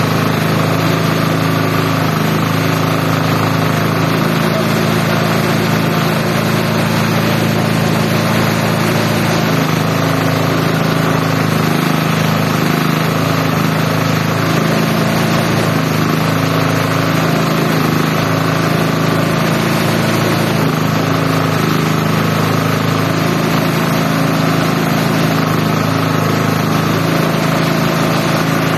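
Engine-driven multi-purpose chopper-shredder machine running steadily at a constant speed, with a loud, even hum and rushing noise.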